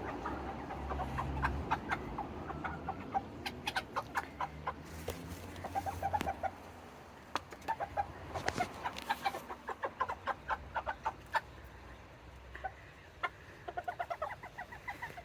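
Serama bantam chickens clucking in short runs, among many scattered sharp little ticks and taps.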